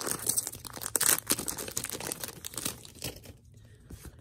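Foil Magic: The Gathering booster pack wrapper being torn open and crinkled in the hands, a dense crackle of many short sharp crinkles. About three seconds in it dies down to a few faint ticks as the cards are handled.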